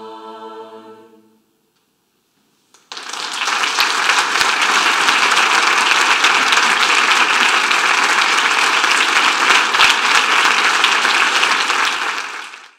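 A choir's final held chord dies away about a second in; after a brief silence an audience bursts into steady applause, which fades out at the very end.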